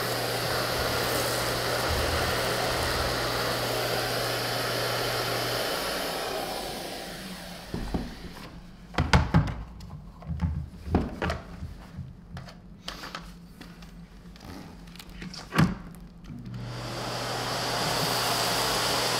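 Vacuum cleaner running steadily with a floor tool, then winding down. A quieter stretch follows with several sharp knocks and clacks. The vacuum then starts up again and runs near the end.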